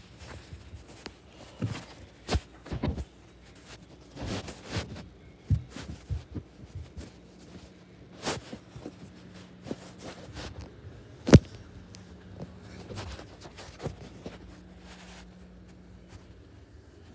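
Handling noise and footsteps from a phone being carried while walking: scattered knocks and rustles, with one sharp, much louder knock about eleven seconds in. A faint low hum comes in about halfway.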